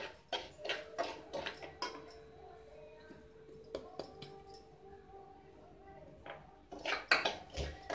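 Semolina tipped from a bowl into an aluminium pressure pan, with light knocks of bowl and spoon against the pan in the first couple of seconds. Near the end a steel spoon scrapes and clatters against the pan as the semolina is stirred to roast it in ghee.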